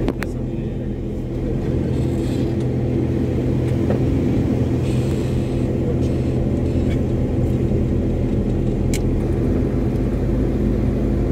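Steady engine and road noise inside a moving car's cabin: a constant low drone, with a few faint clicks.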